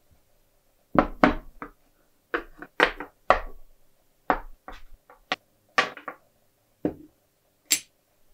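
Rusty metal parts of a disassembled hand-crank pencil sharpener being set down one at a time on a wooden workbench: about fifteen sharp knocks and clinks at irregular intervals, some ringing briefly, with a higher, lighter clink near the end.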